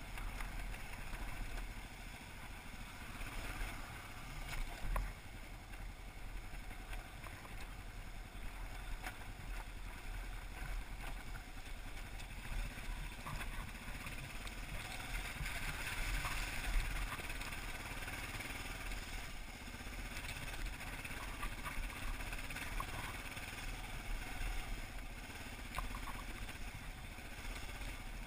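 Kawasaki KLR dual-sport motorcycle's single-cylinder engine running at low trail speed over rocky dirt track, with scattered clicks and knocks.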